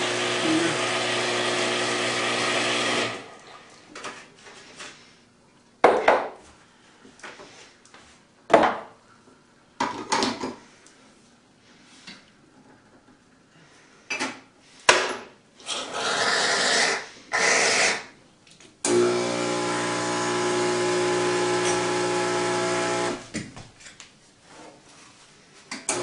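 Bezzera espresso machine's pump running steadily as the group head is flushed, cutting off after about three seconds. Then a string of knocks and clicks from the portafilter being handled and locked into the group, a couple of short hissing bursts, and the pump running again for about four seconds near the end.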